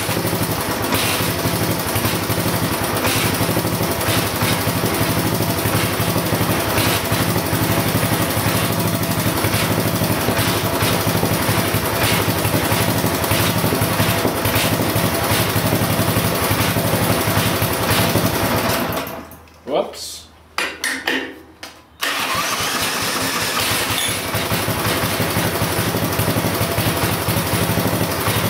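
Briggs & Stratton 5 hp single-cylinder engine running at a steady speed. About two-thirds of the way through the sound falls away in uneven spurts for about three seconds, then the running picks up again.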